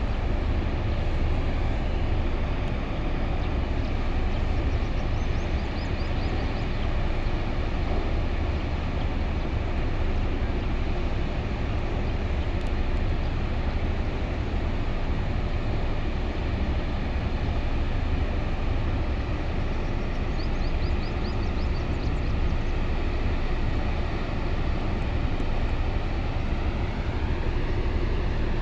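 Workover drilling rig machinery running steadily, a continuous heavy drone with a strong low rumble. Near the end a tone rises in pitch.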